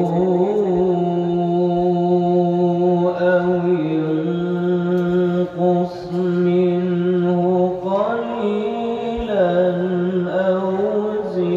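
A man reciting the Quran in the melodic chanted style through a microphone: long held, ornamented notes, with a short breath about five and a half seconds in and a phrase that climbs in pitch about eight seconds in.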